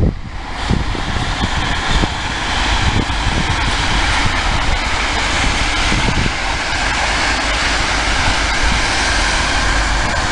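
Passenger train passing close by at speed: a steady, loud rush of wheels on rail over a low rumble, setting in just after the start.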